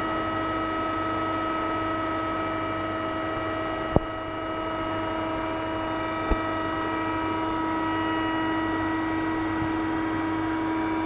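CNC gantry drilling machine for steel plate running, a steady hum made of several held tones. There is a sharp click about four seconds in and a lighter one about two seconds later.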